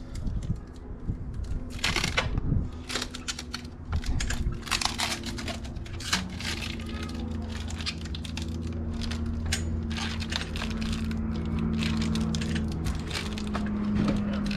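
Irregular clicking, crackling and crinkling handling noises over a steady low hum.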